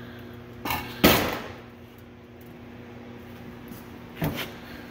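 Handling knocks on the beer sign: a short knock, then a sharp, louder knock about a second in that rings off briefly, and another short knock near the end. Under them runs a steady electrical hum from the running sign's fluorescent light and motor.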